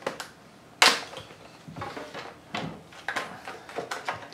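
Plastic retaining clips on the rear cover of a Lenovo ThinkCentre Edge 92z all-in-one popping loose as the cover is pried up with a plastic card: a series of sharp pops with plastic scraping between them, the loudest pop about a second in and several more close together near the end.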